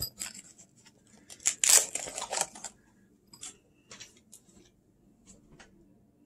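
Hand tools being picked up and handled: scattered light clicks and rustles, with a denser burst of clatter about two seconds in.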